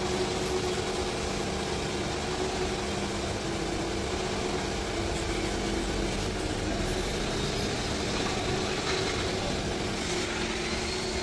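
An engine running steadily at idle: a continuous, even hum with a low steady drone.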